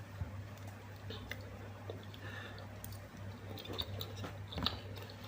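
Soft, wet chewing of avocado, with small scattered mouth clicks and a few slightly louder ones near the end, over a steady low hum.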